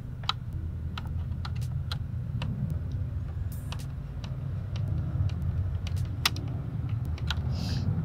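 Small screws being driven by hand into a truck's plastic side-mirror turn-signal housing: a run of small, irregular clicks and taps of the screwdriver and plastic, over a steady low hum.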